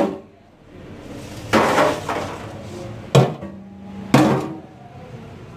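Wire fry basket knocked against a perforated stainless-steel draining tray as the freshly fried French fries are tipped out: three metal clanks about a second apart.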